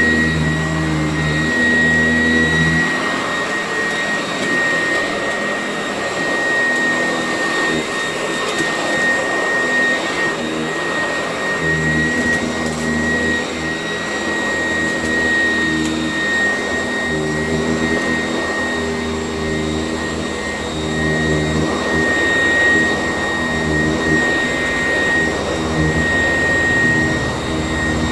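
Sanitaire S675 upright vacuum running, with a steady high motor whine and a lower hum that swells and drops away every second or two as it is worked over the floor.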